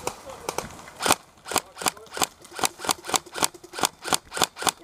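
Airsoft rifle firing a rapid run of single shots, a few at first and then a steady stream of about four a second from about a second in.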